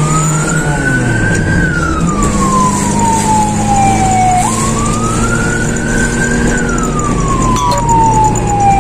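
Fire engine siren wailing in a slow cycle about every five seconds: a step up, a short rise, then a long slow fall in pitch. A vehicle engine runs underneath, its note shifting about a second in.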